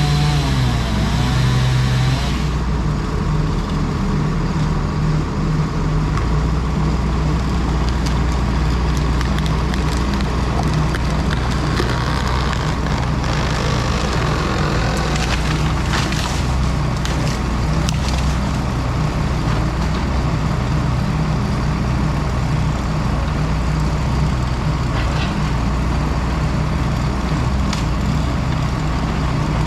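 Engine of heavy tree-work machinery running steadily at a constant speed.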